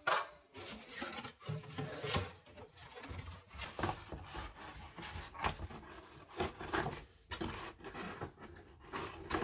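Scissors snipping at the cord handles of a stiff paper shopping bag, with the paper rustling and crinkling as it is held and cut, in an irregular run of short snips and rustles.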